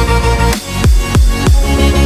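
Electronic background music with a heavy beat: deep bass hits that drop in pitch, about three a second, under sustained synth tones.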